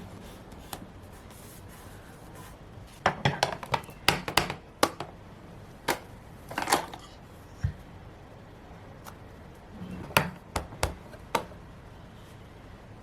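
Stationery and paper being handled on a desk while a planner page is decorated: a cluster of sharp taps and clicks a few seconds in, a short papery rustle around the middle, and another cluster of clicks near the end.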